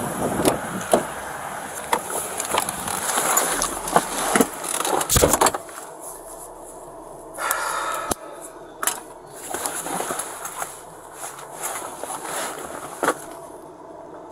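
Knocks, rustling and handling noise on a body-worn camera as an officer climbs into a Ford police SUV, with a heavy thud about five seconds in as the driver's door is shut. After it the outdoor background drops away, leaving scattered clicks inside the cab.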